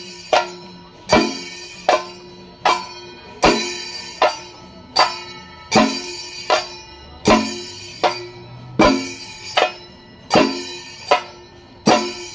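Traditional temple festival percussion music with a slow, steady beat: a sharp ringing metallic stroke about every three-quarters of a second, each ringing on and fading before the next.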